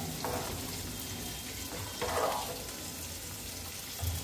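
Rice boiling in a metal pot, bubbling steadily while a steel spoon stirs it, with two brief scrapes of the spoon against the pot, about a third of a second in and about two seconds in. The rice is being parboiled, nearly cooked, before draining.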